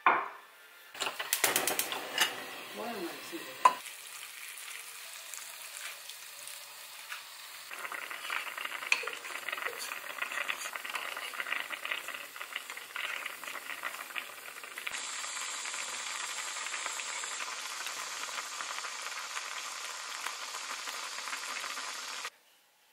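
Broth boiling hard in an earthenware hot-pot, a steady bubbling hiss that cuts off suddenly near the end. In the first few seconds the pot gives a few clinks and knocks as it is handled.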